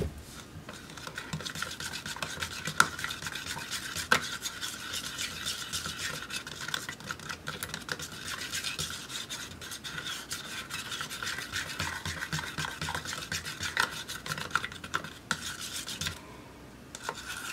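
A paintbrush stirring thick paint in a clear plastic cup, its bristles and ferrule scraping and ticking against the cup wall in a steady run of rubbing with occasional sharper taps. The stirring stops near the end.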